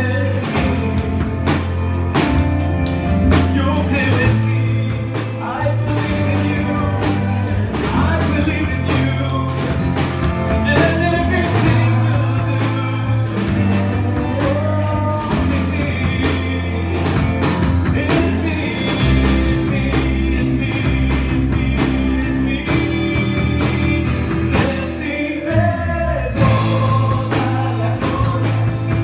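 Live church worship band playing with singing: drum kit, bass guitar and keyboard with timbales, loud and continuous, the band thinning out briefly near the end before coming back in.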